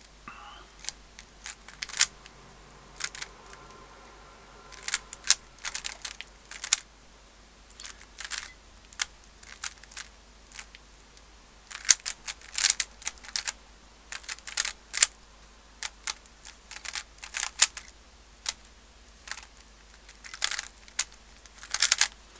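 Magnetic Z-cube 3x3 speed cube being turned by hand: irregular plastic clicks of its layers, sometimes single and sometimes in quick flurries, each turn meeting a small magnetic bump as it settles into place.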